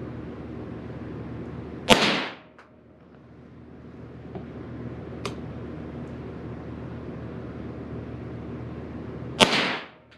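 Two .22 LR rifle shots from a Derya TM22, about seven and a half seconds apart, firing Aguila Super Maximum 30-grain hyper-velocity rounds, each a sharp crack with a short echo in the indoor range. A steady low hum runs underneath.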